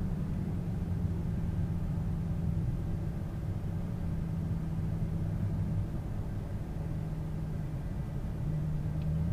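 Steady low road and engine rumble of a car driving at highway speed, heard from inside the cabin, growing a little louder near the end.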